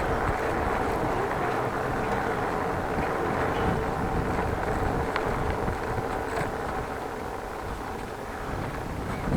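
Steady rush of wind on the microphone with the rolling noise of a bicycle being ridden along a street, easing off a little in the second half.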